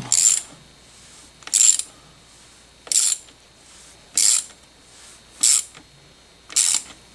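Hand ratchet with an 8 mm socket backing out a Loctited bolt: six short bursts of pawl clicking, one stroke about every 1.2 seconds, turned by hand rather than with an impact so as not to break the bolt.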